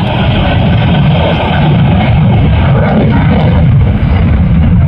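Loud, steady rumble of a Saab 37 Viggen delta-wing jet fighter's engine in flight.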